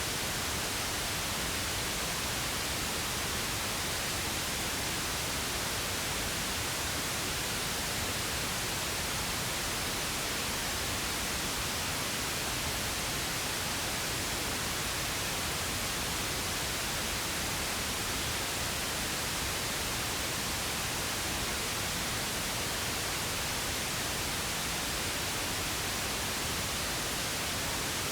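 Synthetic pink noise: a steady, unchanging hiss with no events.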